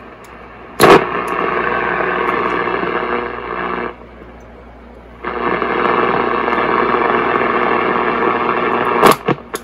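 1952 Zenith Trans-Oceanic H500 tube radio's speaker putting out loud static with a steady hum, starting with a sharp crackle about a second in. The static drops out for about a second in the middle, comes back, and breaks into sharp crackles near the end: an intermittent set just coming back to life after its tube sockets were sprayed with contact cleaner.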